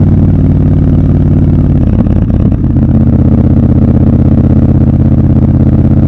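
Triumph Scrambler 1200 XC's 1200 cc parallel-twin engine and exhaust running steadily at road speed. About two seconds in, the note briefly dips and breaks, then settles steady again.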